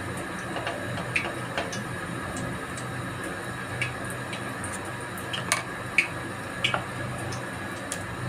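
Bakwan (vegetable fritter) batter deep-frying in hot oil in a steel wok: a steady sizzle with scattered sharp pops, the loudest a little past halfway. A low steady hum runs underneath.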